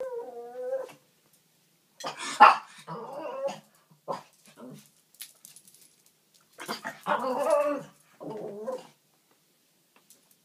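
Miniature Pinscher giving warning barks in a guarding mood: a short pitched whine at the start, then two bouts of barking and yapping, with a quiet spell between them.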